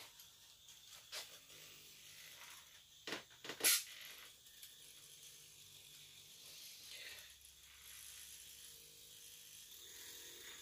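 Small wired vibrating egg buzzing faintly against a cup of freshly poured mould-making silicone, shaking air bubbles loose from the object being moulded. A few sharp clicks and knocks from handling it, two loud ones about three seconds in.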